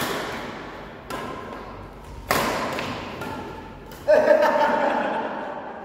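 Badminton rally: rackets hitting the shuttlecock four times, sharp hits one to two seconds apart, each ringing on in the echo of a large hall. The loudest hit, about four seconds in, comes with a short pitched sound.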